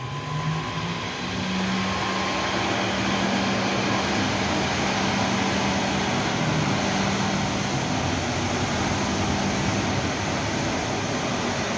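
Cleanline RS32 32-inch ride-on wet floor scrubber running: a steady motor hum over a rushing, vacuum-like noise. The hum rises a little in pitch in the first second or two, then holds.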